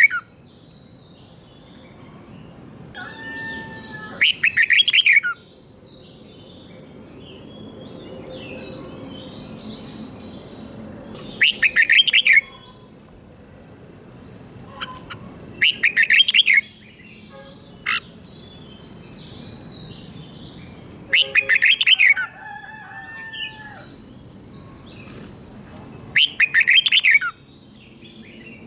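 Red-whiskered bulbul singing its doubled song: five loud, quick phrases of about a second each, spaced several seconds apart, with a few softer whistled notes in between.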